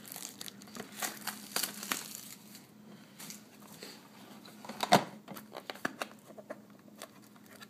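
Crinkling and rustling of trading-card box packaging as a cardboard box is handled, with scattered small clicks and one sharper knock about five seconds in.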